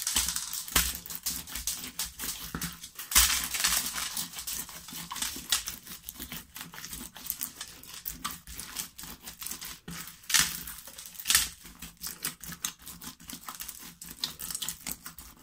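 Clear slime loaded with sequins and confetti being squeezed and kneaded by hand: a dense, irregular run of wet clicks and crackles, with a few louder pops about three, ten and eleven seconds in.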